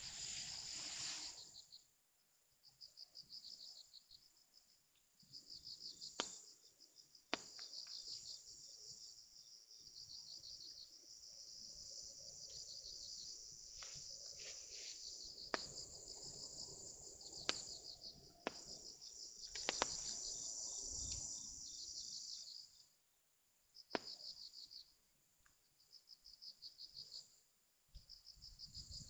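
Faint insect trilling, a high, finely pulsed chirr that comes and goes in stretches, with a few sharp clicks now and then.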